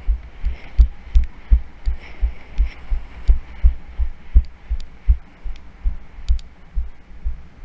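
Low, muffled thuds of footsteps on sand, about three a second, carried through the body into a helmet-mounted action camera in its housing as the wearer walks briskly, with faint sharp clicks from the housing or gear.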